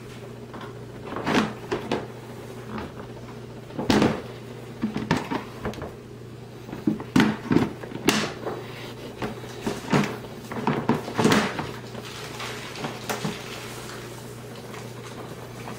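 Irregular hollow plastic knocks and clunks as the hood of a plastic ride-on toy Jeep is lifted and shut and the power-tool battery packs inside are handled.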